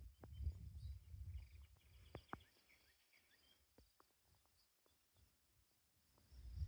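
Faint outdoor ambience: wind gusting on the microphone in the first two seconds and again near the end, with a few quick bird chirps and a thin steady high hum behind, and scattered light clicks.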